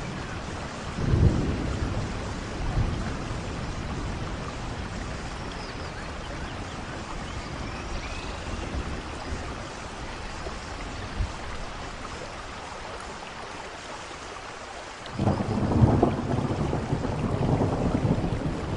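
Heavy rain falling steadily, with rolls of thunder rumbling about a second in and again, louder and longer, from about fifteen seconds on.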